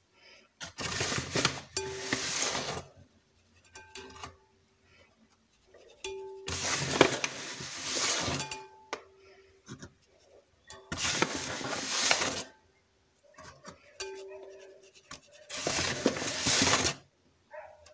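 Flour being sifted by shaking a plastic mesh sieve over a glass bowl: four bursts of rasping and rattling, each about two seconds long, with the sieve knocking against the bowl's rim.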